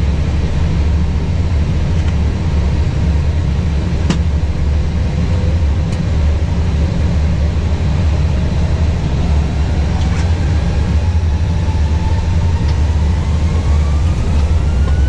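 Airbus A320 jet engines heard from inside the cockpit: a steady low rumble, with a whine that climbs in pitch through the second half and levels off near the end as the engines spool up for the takeoff roll. A few faint clicks.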